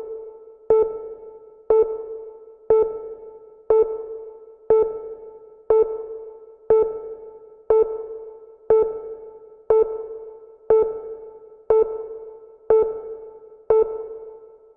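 Electronic tick tone repeating evenly about once a second, each a short pitched blip that dies away, like a workout interval timer counting off seconds.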